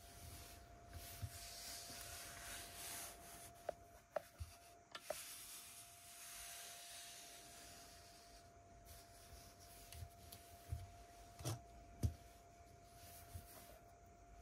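Plastic Lego pieces being handled and pressed together: soft rubbing and rustling, with a few sharp clicks around four seconds in and two more near the end, the last one the loudest.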